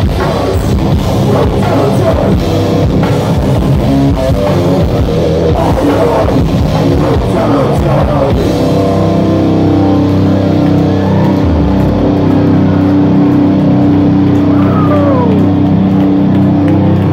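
Metal band playing live, loud and close on a phone: distorted electric guitars, bass and a drum kit, with vocals over the top. About eight seconds in the drumming thins out and the guitars hold sustained ringing chords.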